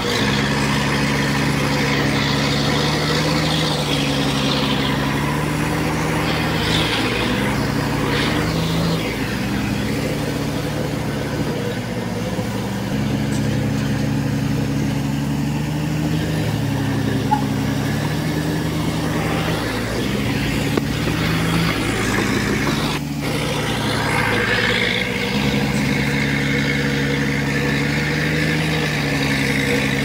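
Heavy machinery's diesel engine running steadily, its pitch shifting up and down every few seconds.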